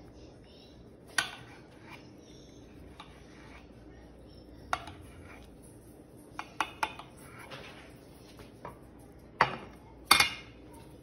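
Chef's knife slicing seared bonita on a ceramic plate, the blade striking the plate in scattered sharp clicks and knocks, with a louder cluster near the end.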